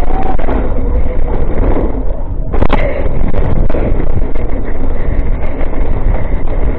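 Wind buffeting a helmet-camera microphone on a mountain bike descending a dirt trail, with the bike rattling and clicking over rough ground and one sharp knock about two and a half seconds in.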